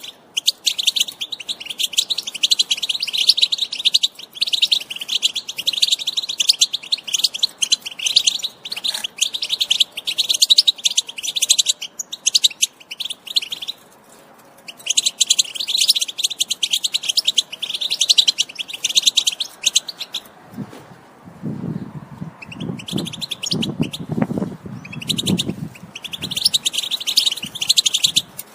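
European goldfinch song: rapid, run-on twittering in long phrases with short pauses, the kind of recording played to caged birds to set them singing. A few low sounds come in over the middle of the second half.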